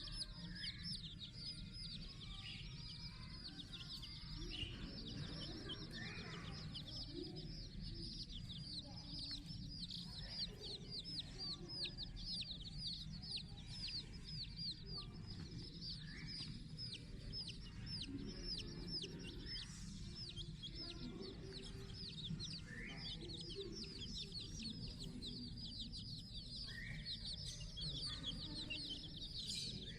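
Many small birds chirping at once, a dense run of short high chirps, with an occasional lower clucking call from fowl.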